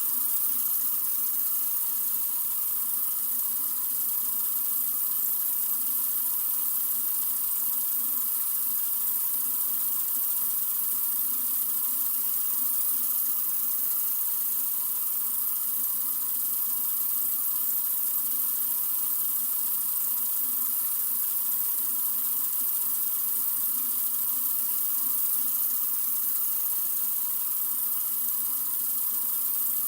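Water running steadily from a sink faucet in a continuous stream: an even, bright hiss that holds the same level throughout.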